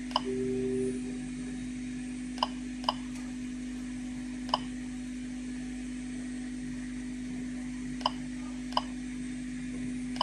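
Geiger counter chirping at random for single detected particles, about six short beeps spread unevenly over ten seconds, over a steady low hum. This slow, irregular rate is the natural background count, with no radioactive source near the tube.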